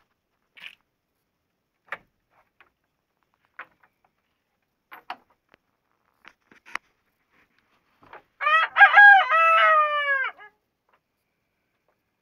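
A rooster crowing once: a loud call of about two seconds, starting about eight seconds in, that falls in pitch at the end. Before it there are only a few faint, short clicks.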